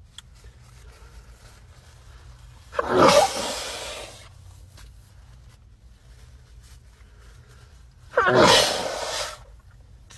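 Two loud human sneezes, about five seconds apart, each a sudden noisy blast with a voiced cry that drops in pitch; a faint low hum runs underneath.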